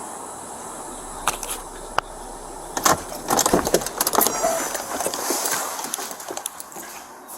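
A series of sharp clicks and metallic rattles with some jingling, densest in the middle, over a steady background noise.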